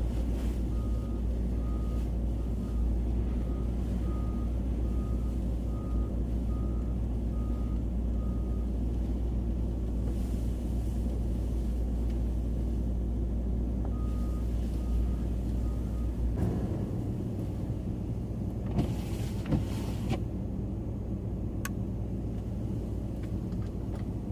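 Nissan Titan pickup's engine and tyres rumbling steadily in the cab as it pushes through deep snow. A repeating electronic beep sounds about every half second for the first eight seconds and again around fourteen seconds in. About sixteen seconds in the rumble drops away, leaving a quieter cab with a brief rustle and a click.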